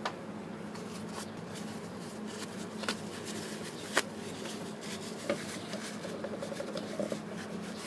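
Scattered small clicks and taps of a motorcycle front brake master cylinder's parts being handled and worked on, over a steady low hum.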